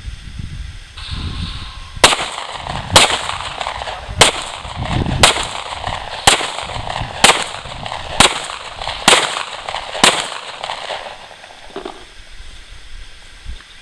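Nine gunshots from a handgun fired at a slow, steady pace, about one a second, each shot sharp with a short echo.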